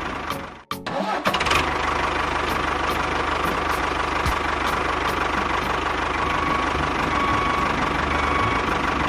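A small engine running steadily with a thin whine, after a brief drop-out just under a second in.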